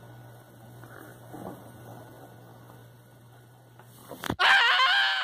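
A steady low electrical hum under faint background noise, then a sharp click about four seconds in, followed by a loud, wavering high-pitched tone that begins to fade near the end.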